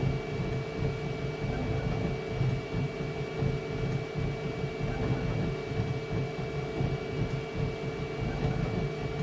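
Flashforge Adventurer 5M Pro 3D printer running mid-print: a steady fan hum with a constant high whine over an uneven low rumble from the moving print head.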